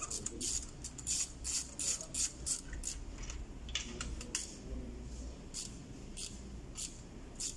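Ratchet wrench with a 14 mm spark-plug socket clicking as a spark plug is loosened: runs of quick, sharp metallic ticks, dense in the first half and thinning out after, over a low steady hum.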